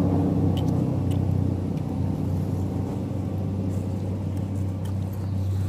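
Motor vehicle engine running with a steady low drone that eases a little after about two seconds, with a few faint clicks over it.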